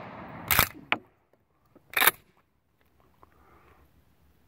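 Savage 77 12-gauge pump shotgun's slide action racked back and then forward, two sharp metal clacks about a second and a half apart with a small click between, as the spent hull is ejected and the next shell chambered; the action cycles without hanging up. It opens on the fading echo of the previous shotgun blast.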